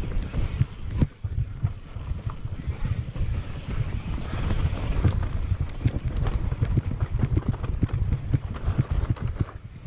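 Downhill mountain bike descending a dirt forest trail: tyres rumbling over dirt and roots, and the bike rattling with many small irregular knocks, a sharper one about a second in. Wind buffets the camera microphone.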